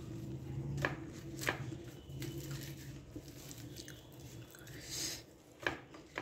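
Flaky layered lachha paratha crackling and rustling as hands crush it and pull its layers apart, with a few short sharp crackles, two in the first second and a half and two near the end, over a low steady hum.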